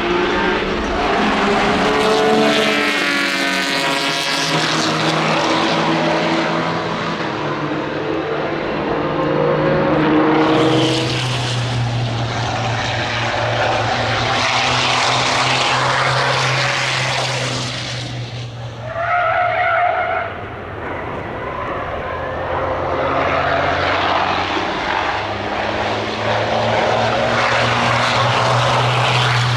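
Racing car engines at full noise on a circuit, the pitch rising and falling as cars pass and change gear, with a short burst from another car about two-thirds through.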